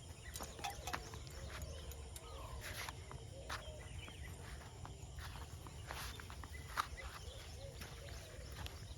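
Footsteps on a walk outdoors, with scattered sharp clicks over a steady low rumble. Faint short chirping calls, likely birds, repeat in the background.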